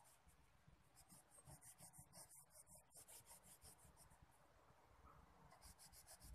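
Orange wax crayon rubbing on paper in quick, even back-and-forth colouring strokes, about five or six a second, faint.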